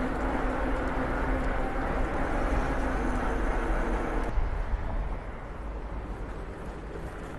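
Outdoor road and traffic noise with wind on the microphone during a ride, a steady rumble with a faint hum, dropping suddenly quieter about four seconds in.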